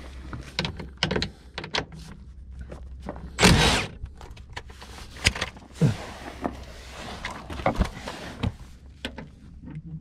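Cordless impact wrench running in one short, loud burst of about half a second, spinning out an undertray bolt. Scattered sharp clicks and knocks come from the tool and bolts being handled.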